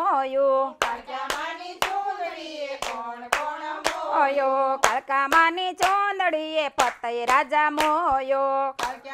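A group of women singing a Gujarati garba devotional song to the Mother goddess in unison, clapping their hands in time at about two claps a second.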